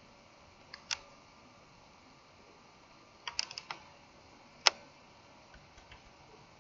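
Sharp clicks of a computer keyboard and mouse over a quiet background: a pair about a second in, a quick run of four or five a little past three seconds, one louder click shortly after, and a few faint ticks near the end.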